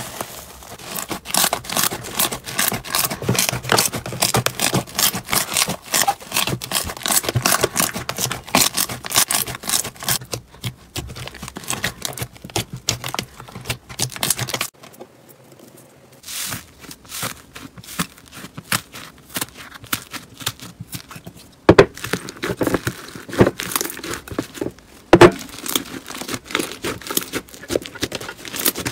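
Hands squeezing, pressing and stretching slime, giving a dense run of crackling, popping clicks. The clicks thin out, stop briefly about halfway through, then resume more sparsely with a few sharper snaps.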